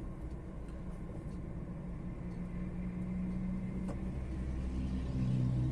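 DAF XF 480 truck's diesel engine running, heard from inside the cab, as the loaded truck pulls away slowly. The engine note gets louder about five seconds in.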